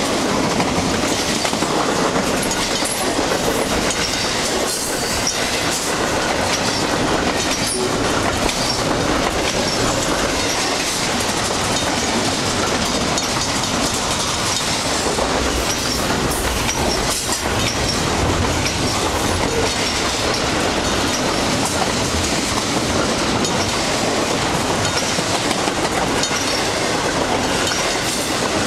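Double-stack intermodal container cars of a long freight train rolling past: a steady rumble and rattle of steel wheels on the rails, with scattered sharp clicks.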